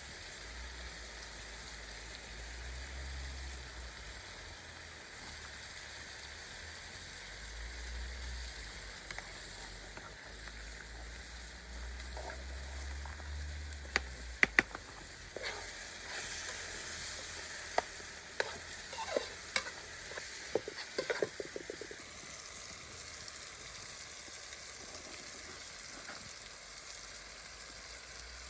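Food sizzling as it fries in a pan, a steady hiss, with a cooking utensil stirring and knocking against the pan in a cluster of sharp taps around the middle.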